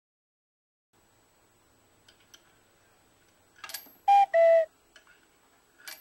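Cast-iron Organ mechanical bank (reproduction of the Kyser & Rex design) being worked: a few light clicks, then two short, loud chime tones in quick succession, the second lower, as the mechanism plays and the monkey tips the coin into the bank.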